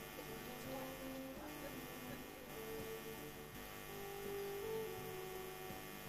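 Steady electrical mains hum, with faint held tones that change pitch every second or so.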